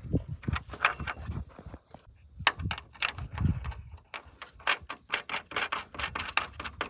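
A steel hex nut being spun by hand onto a half-inch hex bolt through a large washer, the hardware giving off irregular small metallic clicks and clinks, with a short bright metallic ring about a second in.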